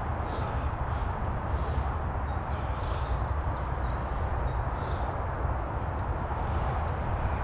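Steady low rumble of wind on the microphone, with a small bird chirping in quick, high, falling notes from about two and a half seconds in.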